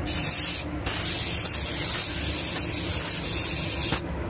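Automotive paint spray gun spraying a coat of 2K plastic primer, a steady air-and-paint hiss. The hiss breaks off briefly under a second in and again near the end.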